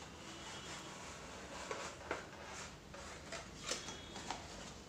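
Faint rustling and a few light clicks as a plastic tray is slid out of a cardboard box and handled.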